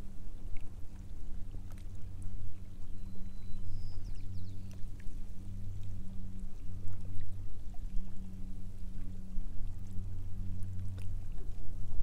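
Water lapping and sloshing against a drifting kayak's hull and the shore rocks, over a low steady hum.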